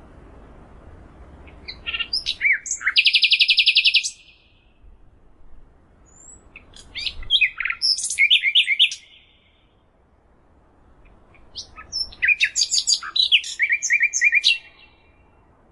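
A songbird singing three phrases a few seconds apart. Each phrase is a quick mix of varied high whistled notes that ends in a fast, even trill.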